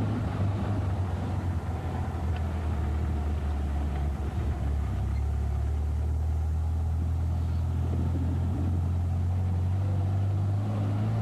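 Car engine and road noise heard from inside the cabin while driving at a steady speed: a constant low drone.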